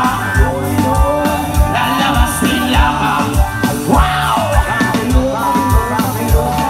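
Live rock band playing loudly through a PA system: a steady drum beat about twice a second, electric guitars and a singer's voice.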